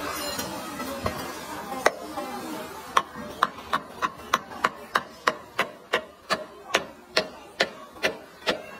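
Knife chopping on a wooden cutting board: a couple of scattered knocks, then from about three seconds in a steady run of sharp chops, about three a second.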